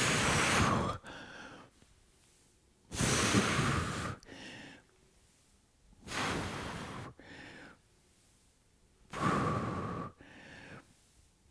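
A man breathing hard under exertion during a set of squats: four forceful breaths out, about three seconds apart, each followed by a shorter, quieter breath.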